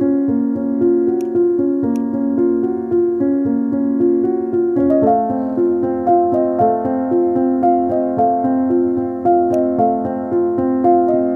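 Background music played on piano or electric piano: sustained chords and a light melody moving in steady steps, shifting to a new chord about five seconds in.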